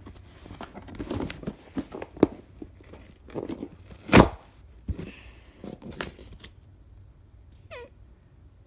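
Shipping package being ripped open by hand: irregular tearing and crinkling of the packaging, with one loud, sharp rip about four seconds in.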